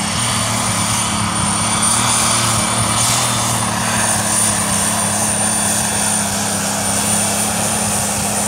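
Super Stock pulling tractor with a three-turbocharger engine of about 3000 hp, running flat out on a pull with a steady engine note and a high, steady turbo whistle.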